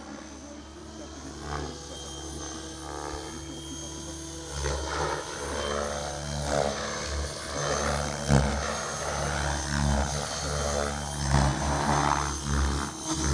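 Radio-controlled model helicopter flying, its rotor and motor making a steady drone that grows louder as it comes down low over the field, with uneven surges in the second half.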